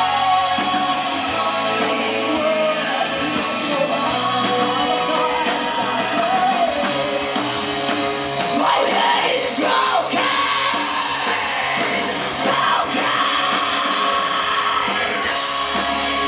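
Live rock band playing with electric guitar and a voice singing.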